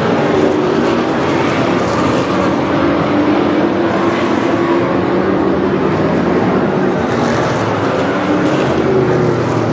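A pack of Thunder Car stock cars racing on a short oval, many engines running together, their pitch rising and falling as the cars go through the turn.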